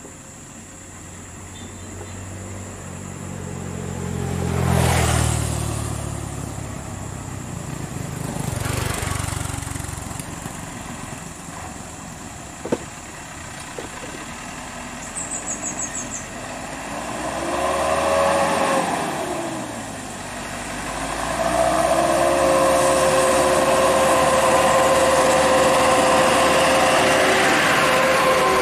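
Scania R580 V8 heavy truck engines hauling lowboy trailers. The engine noise swells to a loud peak about five seconds in and again near nine seconds, an engine's pitch rises and falls around eighteen seconds, and from about twenty-one seconds a loud, steady engine whine holds.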